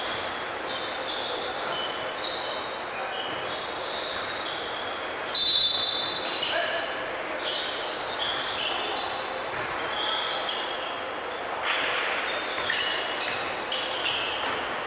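Indoor basketball game: sneakers squeaking on the hardwood floor and the ball bouncing, with players' voices. About five and a half seconds in comes one short, loud, shrill blast, the referee's whistle.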